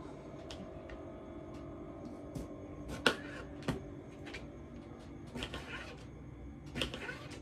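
Kitchen knife slicing cucumber on a plastic cutting board: scattered knocks of the blade meeting the board, the loudest a little after three seconds in.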